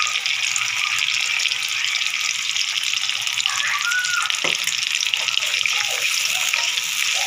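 Sauce base of onion, ginger, chili paste and bottled sauces sizzling in hot oil in a wok, stirred with a wooden spatula; a steady hiss.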